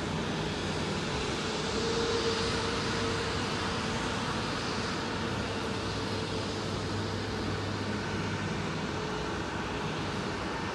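Rolls-Royce Trent 7000 turbofans of a taxiing Airbus A330-800 running at low taxi power: a steady rumble and hiss with a faint held tone, swelling slightly about two seconds in.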